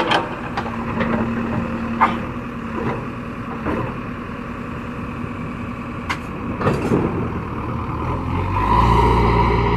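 Heavy diesel machinery running steadily, with a few sharp clanks, growing louder and deeper about eight seconds in.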